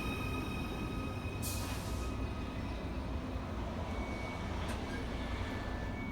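Merseyrail Class 777 electric train arriving at the platform with a steady low rumble. A short hiss of air comes about a second and a half in.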